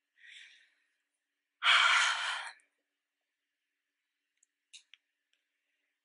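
A woman sighing: a faint breath in, then a loud, long breath out about a second and a half in. Two faint clicks near the end.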